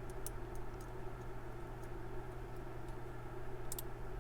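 Scattered faint metallic clicks of a lock pick working the pin tumblers of a Paclock PL1 laminated steel padlock, a few close together near the start and a double click near the end, over a steady low background hum.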